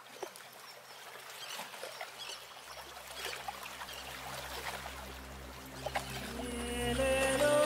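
A soft crackling, trickling noise fading in over a low steady hum, with sustained music notes coming in about six seconds in.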